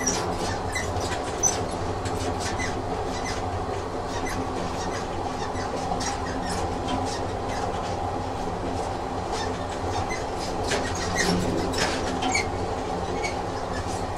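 Train sound effect: a train running steadily, a continuous low rumble with many scattered sharp clicks from the wheels and carriage.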